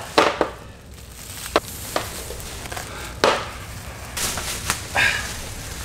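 A large cardboard TV box in plastic wrap being heaved and shifted by hand: several sharp, irregularly spaced knocks and bumps as it is moved, with crinkling of the plastic wrap between them.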